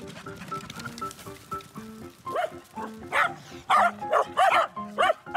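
Welsh corgis barking: a quick run of about eight short barks from about two seconds in, over light background music.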